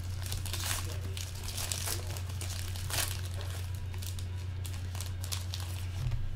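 Foil wrapper of a trading-card pack being torn open and crinkled by hand, a run of irregular crackles over a steady low hum.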